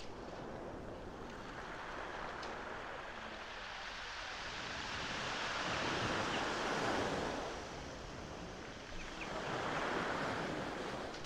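Sea surf breaking and washing on a shingle beach, a steady rush that swells twice, around the middle and again near the end.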